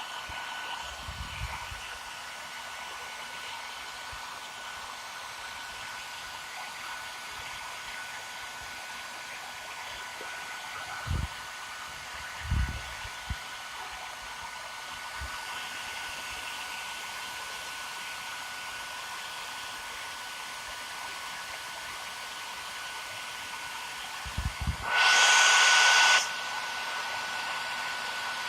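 Hair dryer blowing steadily with a thin whine, heating a motorcycle headlamp to soften its sealant so the lens can be removed. A few low knocks come midway, and near the end a much louder rush lasts about a second and a half.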